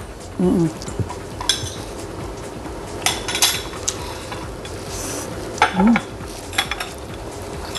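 Cutlery and dishes clinking and tapping at a meal, with a cluster of quick clicks about three seconds in. Two short vocal sounds come in, one early and one near six seconds.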